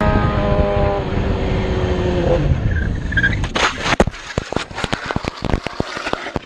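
Sportbike engine running at speed, its note dropping over the first two seconds, then a crash: a noisy slide followed by a rapid, irregular run of knocks and impacts as the motorcycle tumbles along the road.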